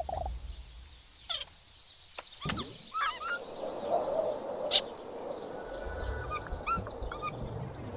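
Cartoon sound effects for a monkey swinging through a night jungle: short animal and bird calls over a steady jungle hiss. There is a sweeping glide about a second in and another at two and a half seconds, a sharp crack near five seconds, and a low rumble that builds near the end.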